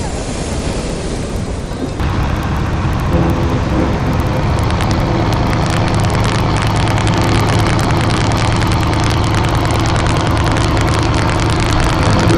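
Wind and surf hiss at first; about two seconds in this gives way to a boat engine running, a steady low hum, with wind buffeting the microphone.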